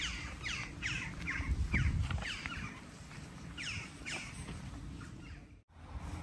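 Birds calling: a quick run of short harsh calls, each dropping in pitch, several a second, thinning out after about four seconds, over a low rumble.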